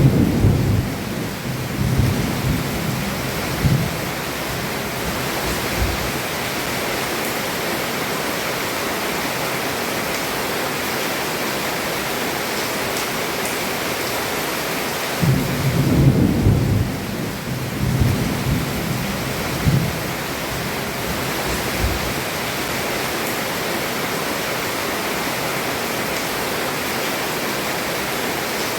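Heavy rain falling steadily on a roof, with rolling thunder rumbling at the start and again about halfway through, and a single low thump a little later.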